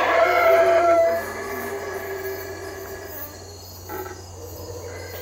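Howler monkeys howling: the loud, deep calls break off about a second in and trail away into fainter, more distant calls. High insect chirping repeats at a regular pace throughout.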